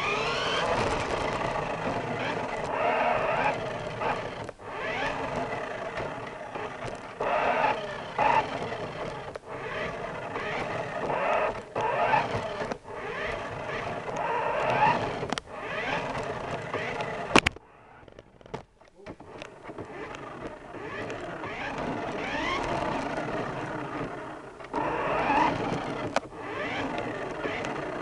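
Electric motor and gears of a toy RC Corvette whining as it drives across a wooden floor, rising in pitch several times as it speeds up, heard from a camera riding on the car. A sharp click about two-thirds through, then it briefly goes quieter before running again.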